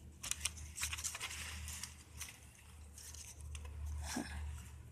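Scattered small clicks and rustling as the plastic parts of a disassembled computer keyboard are handled and pulled apart.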